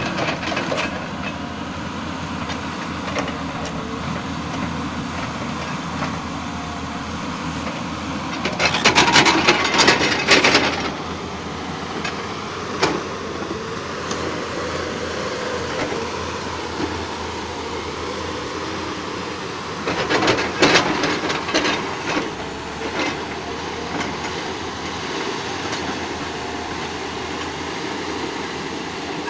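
Hyundai 450 crawler excavator's diesel engine running steadily, with two loud spells of metallic clattering and rattling, about nine seconds in and again about twenty seconds in, and scattered single knocks.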